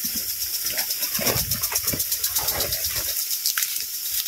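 Irrigation sprinkler spraying water over plants: a steady hiss that pulses rapidly and evenly, about ten times a second.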